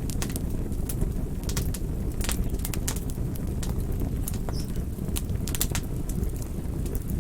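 Campfire burning: irregular sharp crackles and pops from the burning wood over a steady low rush of flame.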